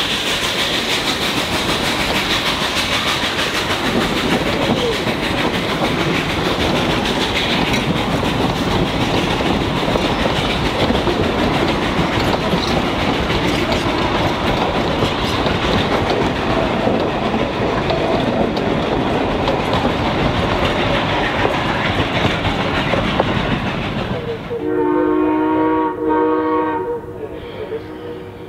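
Narrow-gauge passenger train rolling steadily past, its coach wheels clattering over the rail joints. Near the end a steam locomotive whistle sounds a chord of several notes, in two blasts.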